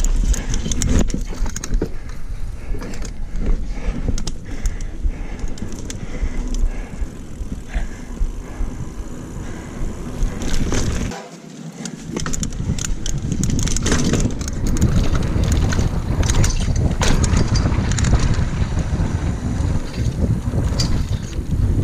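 Mountain bike riding over a dirt trail, heard from a handlebar-mounted camera: a steady low rumble of tyres and wind on the microphone, with frequent sharp clattering knocks as the bike goes over bumps. The rumble dips briefly about halfway through, then picks up again.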